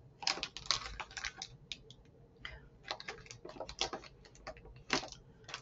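Plastic snack wrappers crinkling and rustling against each other in a cardboard box as hands dig through them: irregular quick crackles and clicks.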